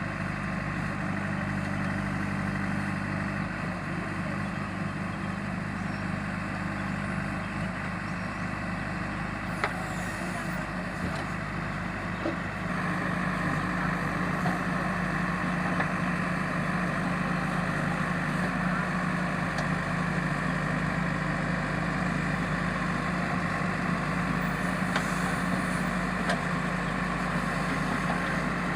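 JCB backhoe loader's diesel engine running steadily; about halfway through its revs rise and it gets a little louder, then holds.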